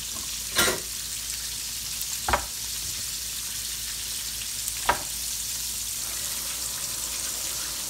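Breaded ribeye steaks frying in oil in a cast-iron skillet: a steady sizzle. Three short knocks come through it, about half a second, two and a half and five seconds in.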